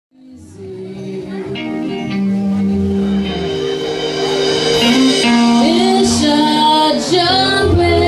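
Live rock cover band playing: electric guitars, drum kit and keyboard, fading in from silence over the first two seconds. A woman's lead vocal comes in over the band about halfway through.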